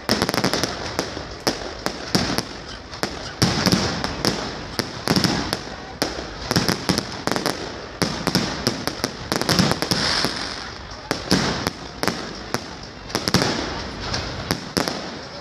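Aerial fireworks bursting overhead in a dense, unbroken barrage of bangs and crackling, several a second.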